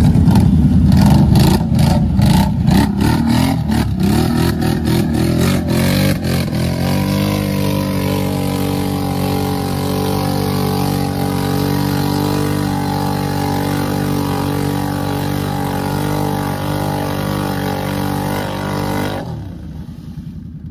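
Can-Am ATV's V-twin engine revving hard, rough and rapidly pulsing for several seconds, then held at a steady high pitch, and dropping off about a second before the end.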